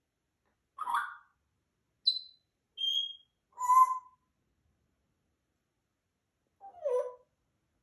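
African grey parrot calling: a short harsh call, two brief high whistles, another call, then a lower note that falls in pitch near the end, each separated by pauses.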